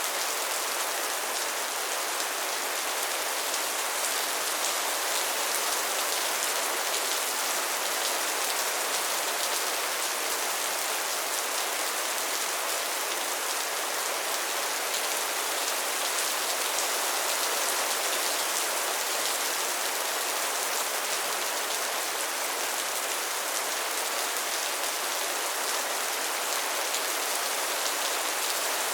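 Steady rainfall: an even hiss of many drops, weighted toward the higher range, that neither builds nor lets up.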